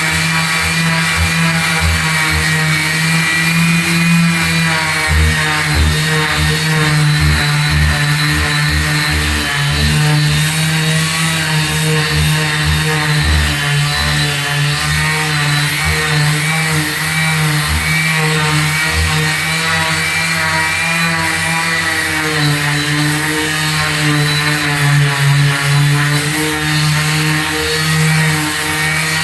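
Electric palm sander running steadily, its motor hum wavering slightly in pitch as it works.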